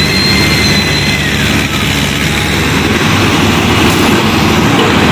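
Diesel tractor engines running hard and steadily under heavy load as two tractors pull against each other in a tug-of-war.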